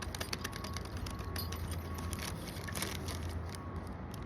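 Small kit parts and their packaging being handled: a run of light clicks and rustles, over a steady low hum.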